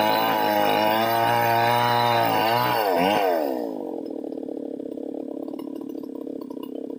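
A Stihl MS 381 two-stroke chainsaw runs at full throttle while ripping lengthwise along a big log, its pitch wavering under load. A little after three seconds in, the pitch dips and rises, then the engine falls back to a steady idle.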